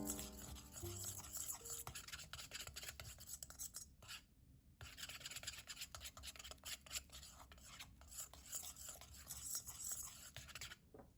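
Faint, rapid scraping and ticking of a utensil mixing in a bowl, pausing briefly about four seconds in and stopping near the end.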